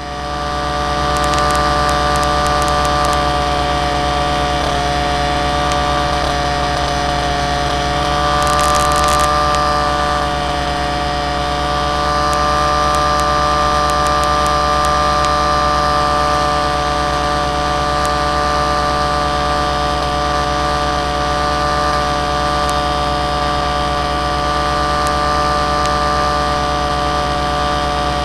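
Aircraft motor and propeller running steadily at constant speed in level flight, heard through the onboard camera's microphone as a steady drone with several fixed tones.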